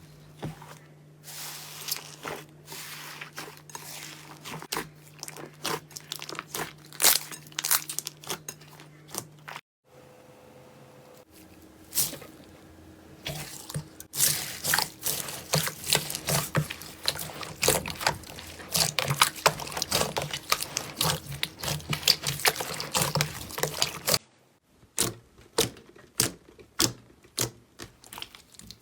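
Slime being squeezed, pressed and poked by hand: a dense run of wet clicks, pops and crackles, changing character about ten seconds in and again near twenty-four seconds.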